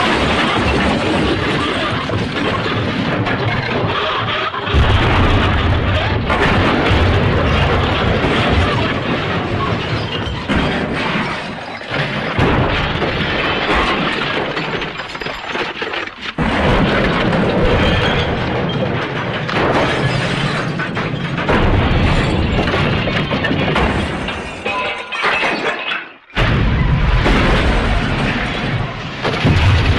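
A dense run of crash and smash sound effects, with booms and breaking glass, mixed with music. The sound changes abruptly every few seconds, as if edited clips follow one another.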